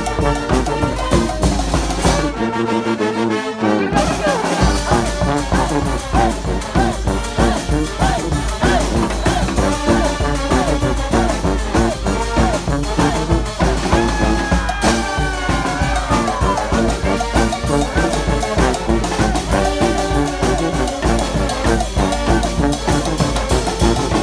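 Street brass band playing an upbeat tune: trombones and trumpets over a steady beat. The bass and beat drop out for a moment a few seconds in, then come back in.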